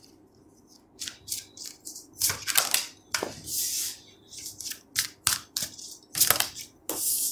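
A deck of tarot cards shuffled by hand, overhand style: a run of short, irregular card strokes starting about a second in.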